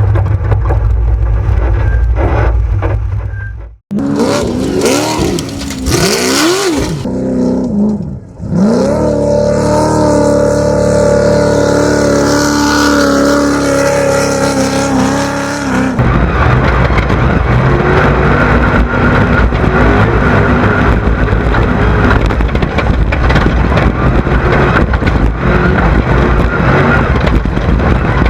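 Off-road desert race buggy engines, in several short cuts. The engines first sweep up and down in pitch as they rev and pass by, then hold a long steady high-revving pull. After a sudden change about two-thirds of the way in, a rough rumble of engine and wind takes over.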